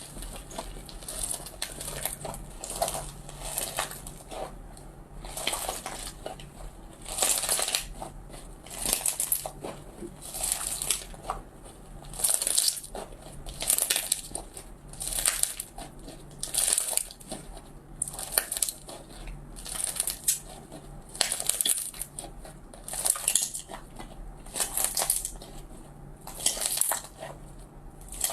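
Slime being squeezed and pressed by hand, in short noisy bursts that repeat about every one and a half to two seconds.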